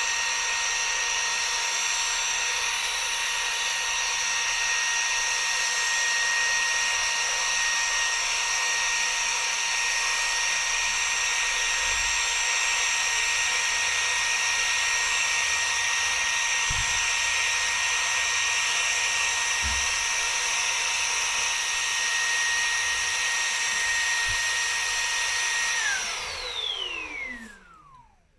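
Xiaomi Shunzao Z1 cordless stick vacuum running steadily with a high whine. About 26 s in its motor shuts off and spins down, the whine gliding down in pitch to silence. The battery has given out after only about three minutes on low speed, far short of the rated 30.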